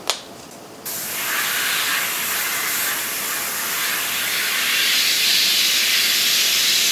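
Airbrush spraying black paint in a steady hiss that starts about a second in and holds for about six seconds. It is a test spray on scrap paper to check the darker mix after more black was added.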